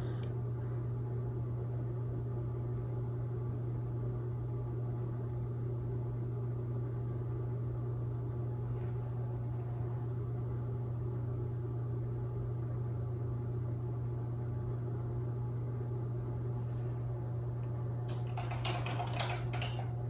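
A steady low hum with a faint whine above it, unchanging throughout, typical of a fan or small motor running. A short scratchy burst comes near the end.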